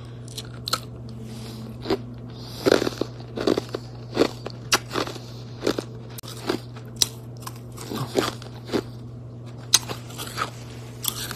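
Ice cubes crunched between the teeth close to a phone's microphone: irregular sharp crunches, about one or two a second, over a steady low hum.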